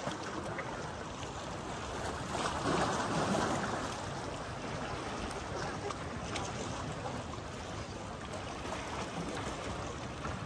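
Lake water lapping: a steady wash of noise that swells louder once, about two and a half seconds in.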